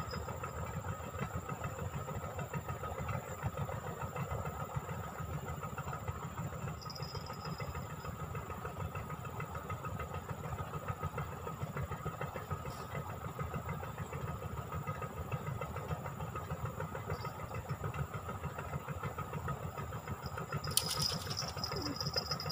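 An engine running steadily with a fast low throb, unseen from the riverbank. About 21 seconds in comes a short burst of rapid high clicking.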